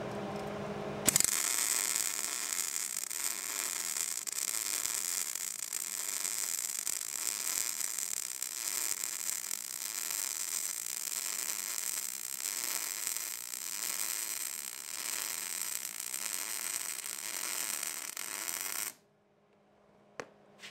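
MIG welder running a continuous bead on a steel hitch receiver tube: the arc's steady, hissing crackle starts sharply about a second in and cuts off sharply near the end.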